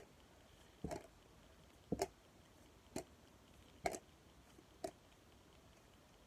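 Trading cards handled one by one, a short tap of card on card about once a second, five times.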